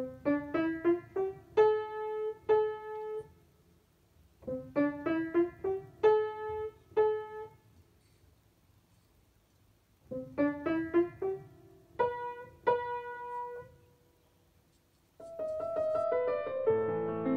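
Piano played by hand: a quick rising run of notes followed by a few held notes, played three times with short pauses between. About fifteen seconds in, denser, continuous music begins.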